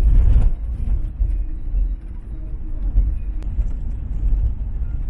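Vehicle driving, a steady low rumble of engine and road noise, louder for a moment at the start. A single sharp click about three and a half seconds in.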